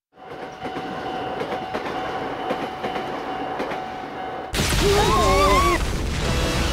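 A train passing a railway crossing in an animated soundtrack: a steady rumbling rattle with a regular clatter of wheels, fading in at the start. About four and a half seconds in, a sudden much louder blast cuts in, with wavering high squeals over it.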